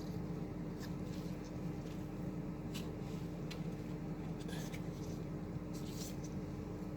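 Faint scattered rustles and crinkles of Teflon thread-seal tape being wrapped around pipe threads, over a steady low hum.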